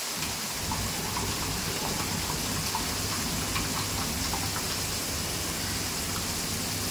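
Onions, tomatoes and ground green masala frying in oil in a pan: a steady sizzle with scattered small pops.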